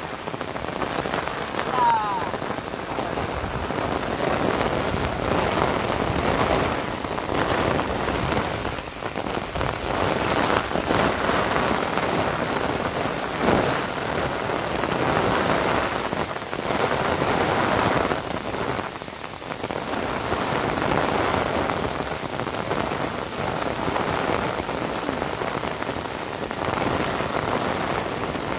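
Heavy rain pouring onto floodwater and wet ground, a dense steady downpour that swells and eases every few seconds.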